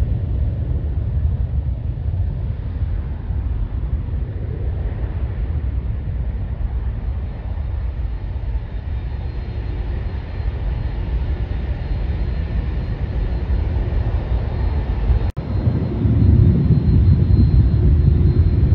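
Boeing 737 airliner's jet engines at takeoff power: a steady rumble as it rolls down the runway and climbs away, with a faint high whine over it in the second half. A brief dropout comes about three-quarters of the way through, after which the sound is louder.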